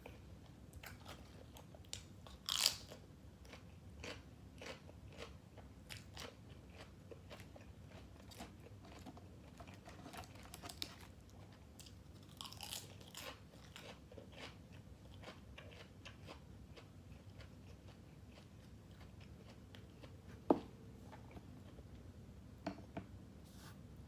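Close-up chewing and crunching of grilled pork balls and crisp raw vegetables, with many small mouth clicks throughout. The loudest crunching bites come about two and a half seconds and twelve and a half seconds in, and a sharp click about twenty seconds in.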